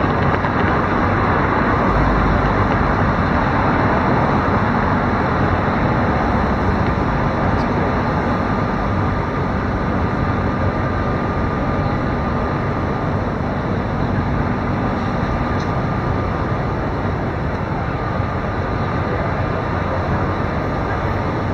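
Steady city traffic noise, with a thin steady whine over it and a low hum that stops about three-quarters of the way through.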